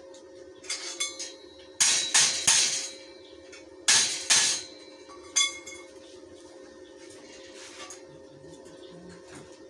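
Steel tubing of a window grill being worked: several short, sharp bursts of metallic clinking and crackle, the loudest about two seconds and four seconds in, with a brief ringing after some of them.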